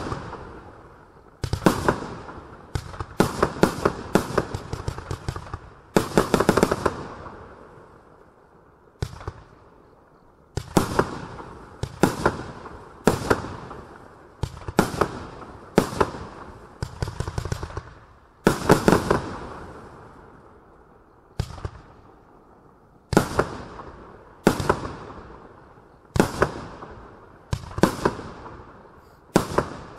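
Cube Fireworks Galaxy Defender 30-shot barrage cake firing: an irregular run of sharp bangs, sometimes several within a second, each dying away before the next.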